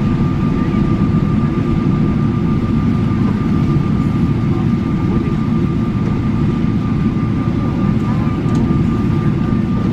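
Steady airliner cabin noise on the ground after landing: a constant low rumble with a thin steady whine running through it.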